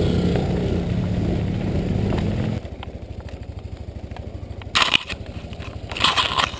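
Small off-road buggy engine running under throttle, then dropping abruptly to a low, regular idle about two and a half seconds in. Two brief scraping noises come near the end.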